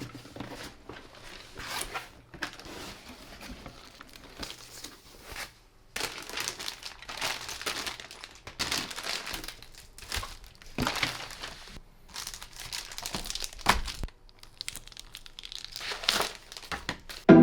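Packaging of an RC car kit being handled and opened, crinkling and rustling irregularly, with some tearing sounds.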